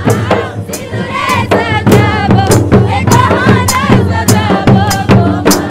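Folk drumming with group singing: drum strokes at about three a second, and voices singing over them from about a second in.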